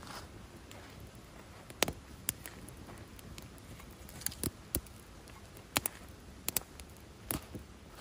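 A campfire of split wood kindling crackling, with about ten sharp, irregular pops from the burning wood.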